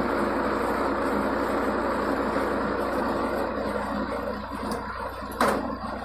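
Tractor and Jawan round baler running in the field: a steady mechanical running noise with an engine hum that eases off in the second half. A single sharp clank comes about five and a half seconds in.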